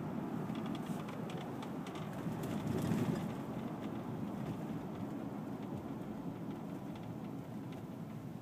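Steady road noise of a car heard from inside the cabin while driving: tyres on the road and the engine running, with a few faint ticks between about one and three seconds in.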